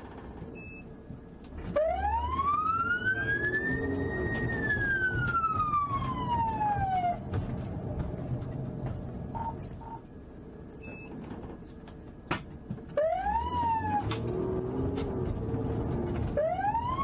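Police car siren wailing: one long rise and slow fall about two seconds in, then a quieter stretch, then two quicker rise-and-fall sweeps near the end, over a low road rumble.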